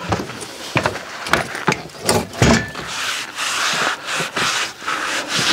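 A few sharp knocks from handling wood, then, from about halfway, hand sanding strokes back and forth along a glued plywood trough, rubbing off the dried glue.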